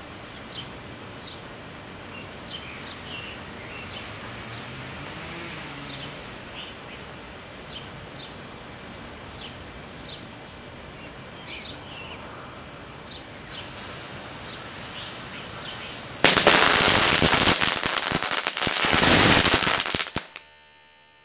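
Sparklers fizzing with a steady hiss while birds chirp faintly; about sixteen seconds in, a loud rapid crackle of firecracker pops bursts out, lasts about four seconds and cuts off.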